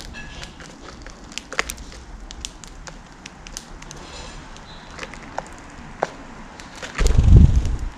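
Small birds pecking at seeds: a run of quick, sharp, irregular taps and clicks, with a faint brief chirp or two. Near the end a loud, low rumbling burst lasts just under a second.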